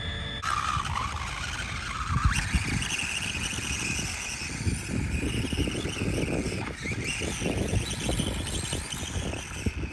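SkyRC SR5 1/4-scale RC dirt bike's battery-powered electric motor whining as it rides over dirt, the pitch rising and falling with the throttle, over a low, uneven rumbling noise.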